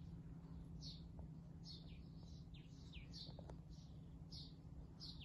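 Small birds chirping faintly: short, high chirps that fall in pitch, about two a second, over a steady low outdoor rumble.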